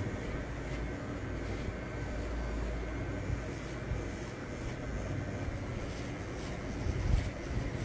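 Cordless T-blade hair trimmer buzzing steadily as it shaves the neck hair below the beard line, with a brief louder bump about seven seconds in.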